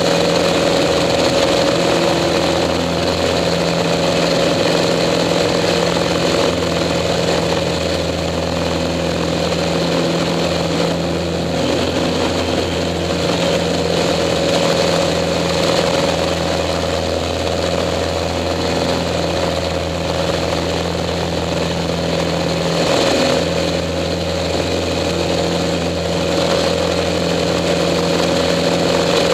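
Pitts S-2A biplane's six-cylinder Lycoming engine and propeller running steadily, heard from inside the cockpit with rushing wind, the engine note shifting slightly a few times.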